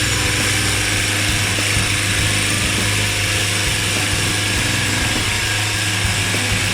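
Automatic CNC wood lathe turning a wooden blank, running with a steady low hum under an even hiss from the cutting.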